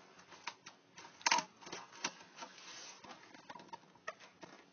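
A cardboard shipping box being handled: scattered clicks, crinkles and scrapes, the loudest a short cluster about a second in.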